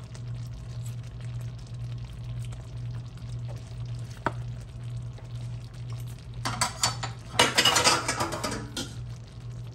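Thick gravy bubbling in a skillet of meatballs, with a low steady hum underneath. About six and a half seconds in comes a loud stretch of scraping and clattering at the pan that lasts a couple of seconds.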